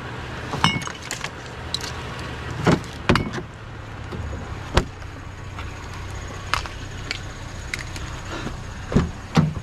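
Scattered clicks and knocks of scrap wire and metal being handled, over the steady low hum of a vehicle engine idling.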